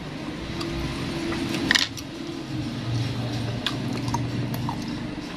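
Close-up eating sounds: wet mouth clicks and crunches as fried wonton-skin-wrapped sausage snacks are bitten and chewed, with one louder crunch a little under two seconds in, over a steady low hum.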